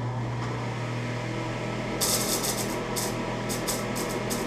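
Hiram Percy Maxim's 'Old Betsy' rotary spark-gap transmitter running, its spinning wheel making a steady hum. From about two seconds in, loud rasping spark bursts come in short and longer on-off stretches as it is keyed in Morse code (CW).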